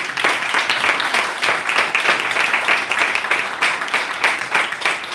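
A small audience applauding: many hands clapping together in a fast, steady patter.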